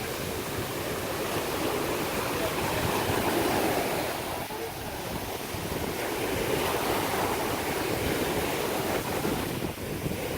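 Ocean waves washing in steadily, with wind buffeting the microphone.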